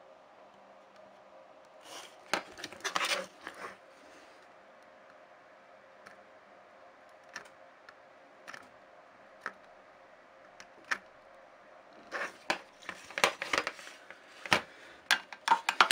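Sharp clicks, snips and short scrapes of small hand tools working on a laptop motherboard during a DC jack repair, in two busy spells with single ticks between, over a faint steady hum.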